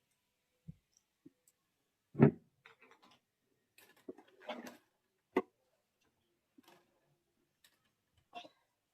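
Scattered knocks and clicks of things being handled while the fridge's outside is wiped down with a rag. The loudest is a thud about two seconds in, a sharp knock follows a few seconds later, and there is a brief rustle in between.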